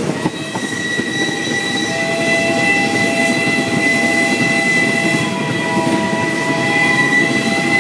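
Passenger train rolling along the track, heard from a coach window, with its steady running rumble. Several steady high tones start just after the beginning and are held over the rumble, with lower tones joining partway through.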